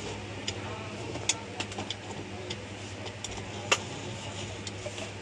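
Scattered small clicks and taps of parts being handled on a workbench, the sharpest a little before the end, over a steady low hum.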